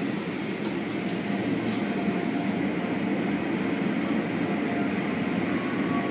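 Automatic car wash machinery running, a steady low mechanical noise with water spray, heard through a window. A brief high squeak rises about two seconds in.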